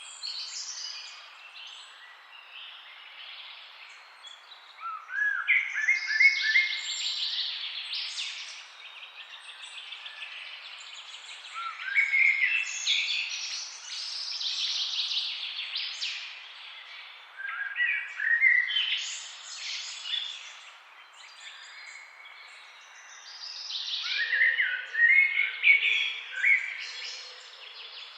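Songbirds singing in forest, a loud phrase of quick rising notes and trills coming about every six seconds, over the steady faint rush of a flowing river.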